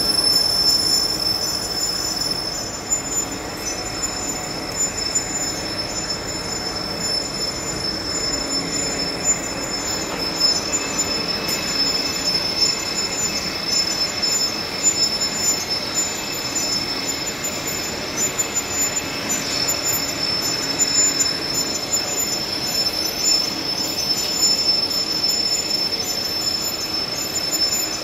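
Heavy-duty lathe turning a large steel disc while the cutting tool faces it: a steady metal-cutting noise over the machine's running, with a high-pitched whine held throughout.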